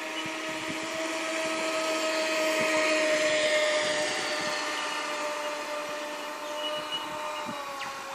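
Radio-controlled speedboat's motor running flat out as the boat passes, a steady high-revving tone that grows louder to a peak a few seconds in, then fades and drops slightly in pitch near the end.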